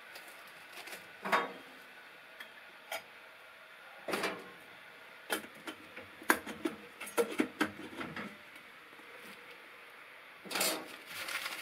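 Scattered metal clinks and knocks of a stainless steel coffee percolator and its lid being handled and set on a gas camp stove, ending with a short rush of noise near the end as the gas burner lights.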